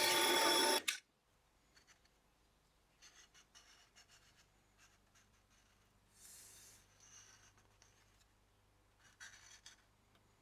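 Drill press running while drilling a hole in a small wooden block, stopping about a second in. Then faint scrapes and clicks as the workpiece is handled.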